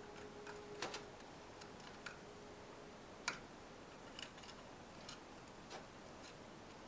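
A soft ringing tone fades out in the first second, then faint, irregular clicks and taps, roughly one a second, the sharpest about three seconds in.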